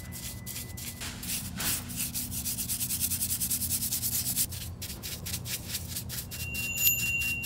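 Rapid, rhythmic rubbing strokes on a surface, several a second, like brisk hand sanding or buffing.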